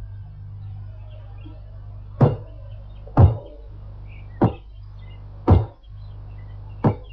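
Cartoon sound effects: five short, sharp thuds, each dying away quickly, spaced about a second apart, over a steady low hum.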